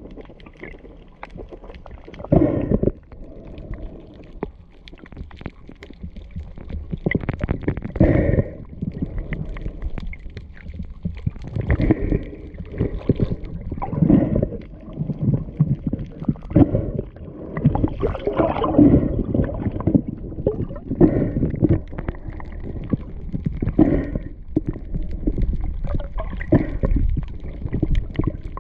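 Water heard by a submerged camera: muffled gurgling and bubbling in irregular swells every second or two, as the camera moves through the water among feeding fish.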